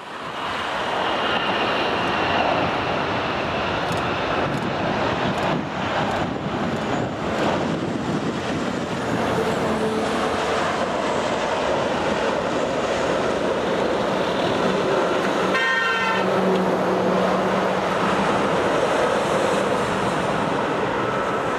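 Boeing 787-9 Dreamliner's twin turbofan engines at takeoff thrust during the takeoff roll and rotation, a steady loud roar. A brief pitched note sounds about three quarters of the way through.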